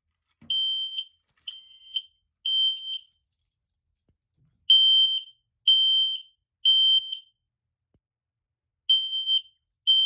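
Gentex Commander 1 fire-alarm horn sounding the temporal code-3 evacuation signal: three high beeps about a second apart, a pause of about two seconds, then the next three, for three rounds. This is a somewhat slow code 3.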